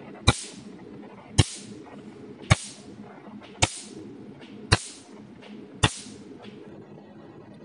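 Pico (picosecond) laser firing single pulses onto black laser test film: six sharp snaps about one a second, each pulse burning a round tan spot into the film. A steady low hum runs underneath.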